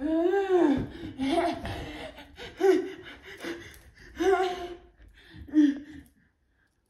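A woman's voice making wordless exclamations and gasps mixed with laughter, in short bursts about a second apart, cutting off about six seconds in.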